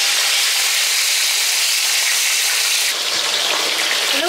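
Milkfish frying in hot oil in a pan, a loud, steady sizzle that thins slightly about three seconds in.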